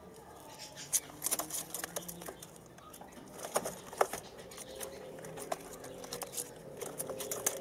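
Three-week-old white dove squabs preening and shifting in a straw nest: irregular soft rustling of feathers and straw with scattered small clicks, the sharpest about a second in and about four seconds in.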